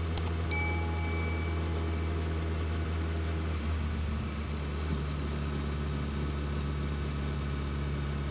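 A couple of quick clicks and then a bright notification-bell ding about half a second in, ringing out over a second or so. Under it, the Suzuki Hayabusa's inline-four engine runs steadily at low revs, its note shifting slightly around the middle.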